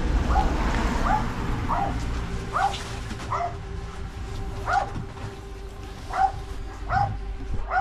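A dog whimpering over and over, short high whines coming about once or twice a second, with a low rumble underneath.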